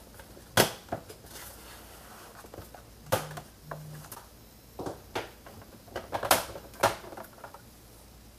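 Plastic snap-fit clips of a Roborock S6 robot vacuum's top cover cracking loose one after another as the cover is pried off, about seven sharp snaps, loudest about half a second in and about six seconds in. The cracks sound bad but are the clips releasing, not breaking.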